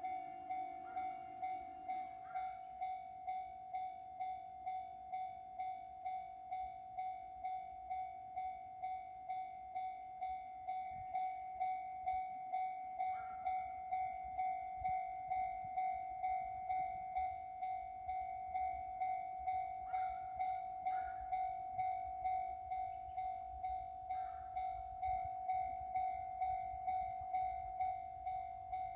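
Japanese level-crossing warning bell ringing, an electronic ding repeating steadily about twice a second. A train's low rumble builds underneath from about halfway through.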